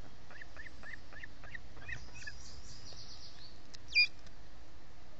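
Ospreys chirping at the nest: a quick run of short, rising whistled chirps, a faint higher twitter, then one sharp, louder call about four seconds in.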